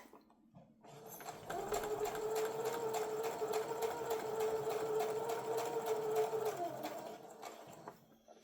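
Electric sewing machine stitching a seam: a steady motor hum with rapid, evenly spaced needle clicks. It starts up about a second in, runs at an even speed, and slows to a stop near the end.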